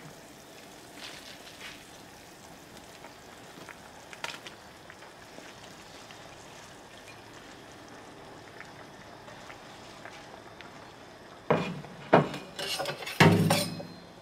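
Pot of vegetable soup simmering with a soft, steady sizzle. Near the end come a few loud clatters and rustles as spinach leaves are tipped from a ceramic bowl into the pot.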